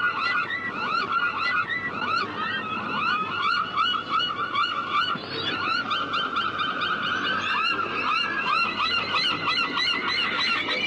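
A flock of birds calling all at once: many short, hooked calls overlap without a break.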